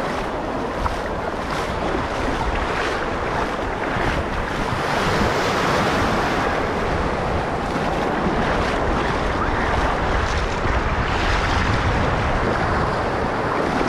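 Ocean surf washing on the beach, with wind buffeting the microphone; a steady rushing noise throughout.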